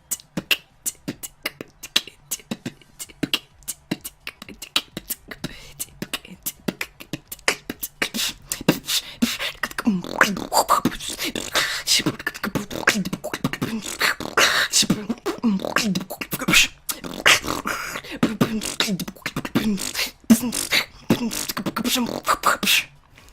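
Human beatboxing: a fast, rhythmic run of sharp percussive mouth clicks, with pitched vocal sounds joining in about eight seconds in. It stops abruptly near the end.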